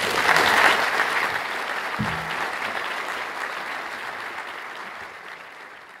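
Audience applauding, loudest in the first second and then slowly dying away.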